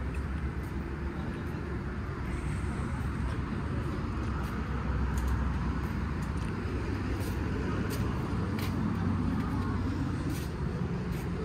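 Steady low hum of vehicles running with a wash of traffic noise around a fuel station forecourt, with a few faint clicks.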